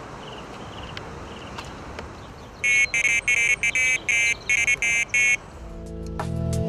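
Electronic carp/pike bite alarm beeping in a quick, irregular run of about nine loud bleeps, the sign of a fish taking line on a baited rod. Wind noise runs underneath, and music comes in near the end.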